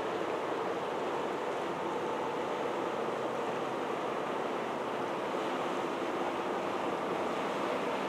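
Steady rushing noise of water and wind at the waterside, even throughout, with no distinct events.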